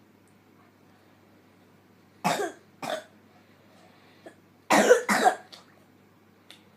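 A young boy coughing: two short coughs about two seconds in, then two louder ones about two seconds later. It is the night-time cough that the parent puts down to postnasal drip.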